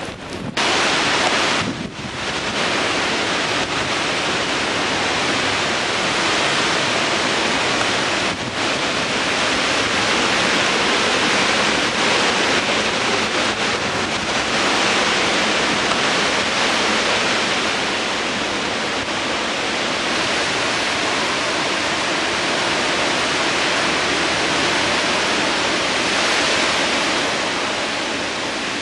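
Rain falling steadily in wind: a loud, even hiss, with wind buffeting the microphone.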